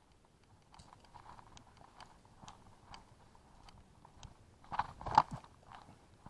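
Crunching footsteps, about two a second, with a louder cluster of crunches about five seconds in.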